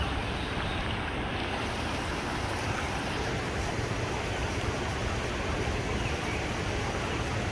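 Steady rush of a storm-swollen river in flood, brown water pouring over a weir.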